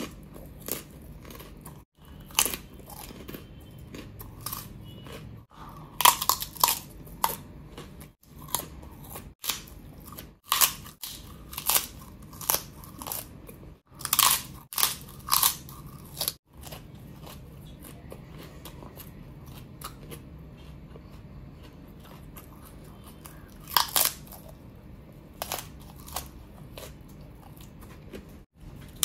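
Close-up crunching and chewing of fried papad: sharp crisp bites in bursts, thickest in the middle and again near the end, with a calmer stretch of chewing between them.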